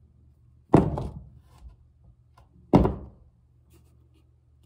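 Two dull thunks about two seconds apart, as objects are set down on a hard surface.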